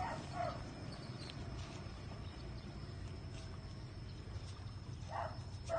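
Steady low rumble of outdoor background noise, with short faint snatches of voices just after the start and near the end.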